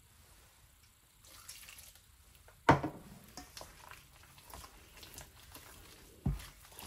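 Gram flour batter being mixed by hand in a stainless steel bowl: soft wet squishing and small ticks, with a sharp knock about two and a half seconds in and a softer one near the end.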